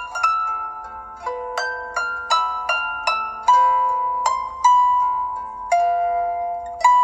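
A preloaded Samsung Galaxy Light ringtone playing a melody of notes that each start sharply and fade away, often several at once, one or two new notes a second.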